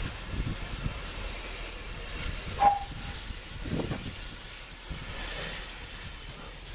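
Pannier tank steam locomotive L.94 moving slowly with its coaches, steam hissing over a low rumble. About two and a half seconds in there is a brief, sharp, loud sound with a short tone in it.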